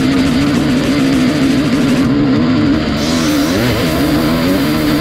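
Dirt bike engine pulling hard up a steep rocky climb, its revs rising and falling unevenly as the rider works the throttle over the rocks.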